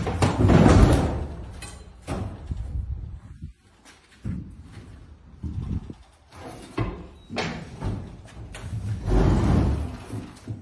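Heavy sheet-steel commercial pizza ovens being shoved and tipped off their stack: metal scraping, clanking and knocking. The loudest scraping and banging comes about a second in and again near the end.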